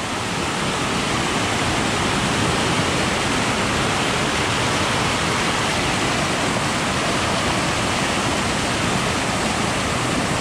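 Steady rushing of flowing water, an even hiss with no change.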